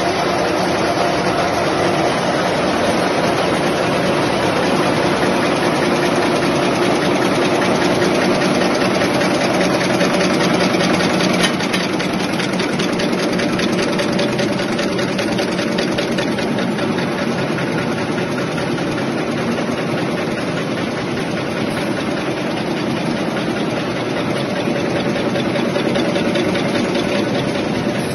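Napkin paper folding and packing machine running, a steady mechanical hum with rapid, even clicking from its moving parts.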